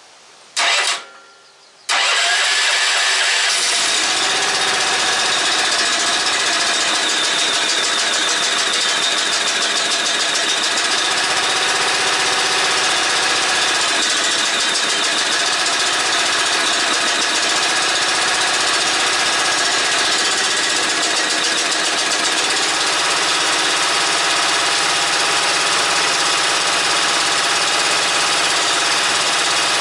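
13 hp Honda GX390 single-cylinder four-stroke engine being pull-started: a short burst about half a second in that dies away, then it starts at about two seconds and runs steadily.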